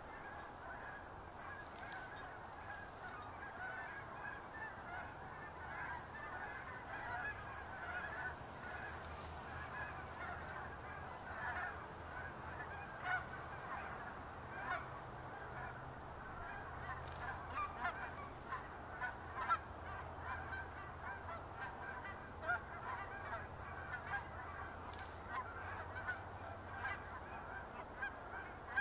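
A flock of geese honking, many short overlapping calls that grow busier from about halfway through, with a few louder honks standing out.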